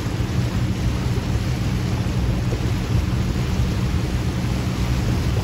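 Steady low rumble with an even hiss over it: wind buffeting the microphone on a moving boat, over the drone of the Albin 43 trunk trawler's twin engines.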